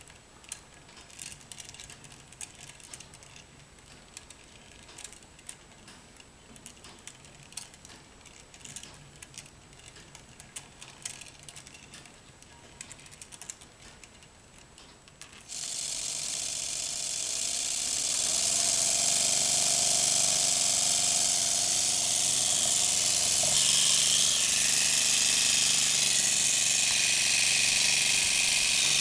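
Homemade mini radial air engine built of clear plastic: light, irregular clicking at first, then about halfway through compressed air comes on suddenly with a loud rushing hiss and the engine spins up, running fast with a steady buzzing whir.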